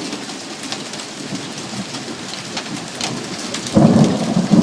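Heavy rain with small ice pellets ticking on a car. About three-quarters of the way in, a loud rolling rumble of thunder starts suddenly.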